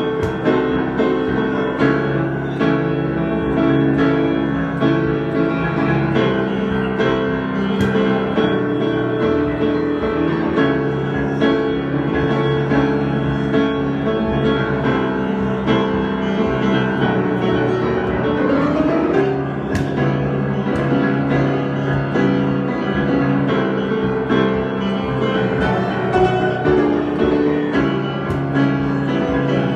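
Solo piano improvisation, chords and melody played continuously.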